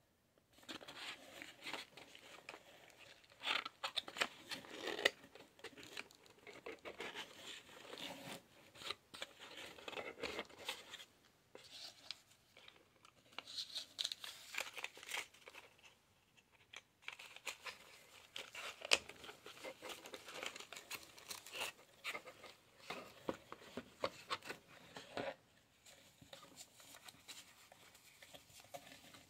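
Hands unpacking a small cardboard product box and its plastic-wrapped contents: irregular crinkling, rustling and tearing of plastic wrap, with cardboard flaps scraping and tapping. It comes in spurts of a few seconds with short pauses between them.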